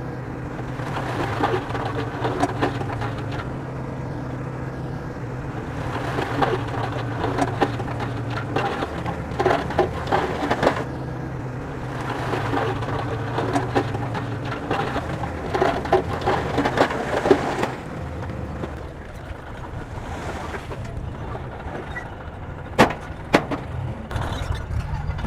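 Bulldozer's diesel engine running steadily, with spells of clattering and scraping from the tracks and blade as it works soil, and two sharp knocks near the end.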